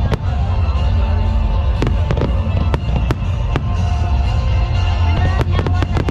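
Aerial firework shells bursting: a dozen or so sharp bangs, scattered at first and then coming in a quick run near the end, over a steady deep rumble. Music plays underneath.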